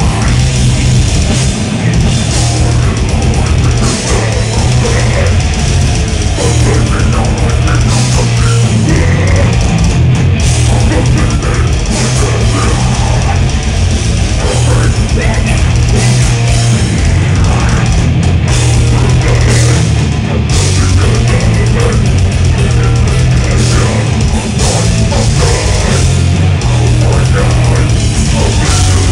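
Death metal band playing live and loud: heavily distorted electric guitars over fast, dense drumming, without a break.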